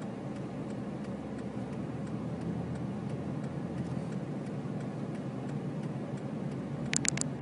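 Steady engine and road noise inside a slowly moving car's cabin, with faint regular ticking and a quick run of sharp clicks near the end.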